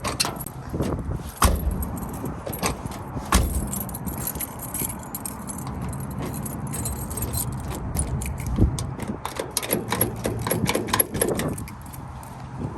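Metal clinking and rattling of keys, tools and lock parts while a car door lock cylinder is removed and replaced, with three heavier thumps against the door and a quick run of small clicks near the end.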